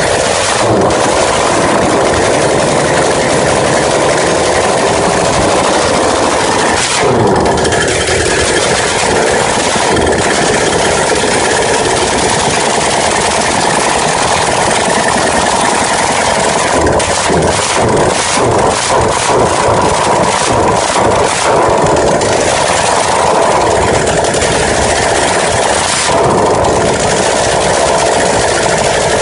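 Kawasaki KZ750 H1 motorcycle engine running on its first start, with throttle changes about 7 s in and near the end, and a run of quick pulses in the middle. It carries a weird sound that the owner calls awful.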